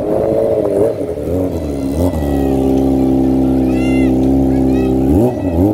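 Green Kawasaki sport bike's engine through a Yakuza aftermarket exhaust, revved up and held at a steady high rev for about three seconds, then dropping briefly and climbing again near the end.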